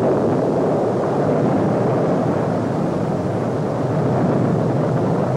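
A bomb explosion and the fire after it: a sudden loud blast at the start, then a dense, steady, low rushing roar with no pauses.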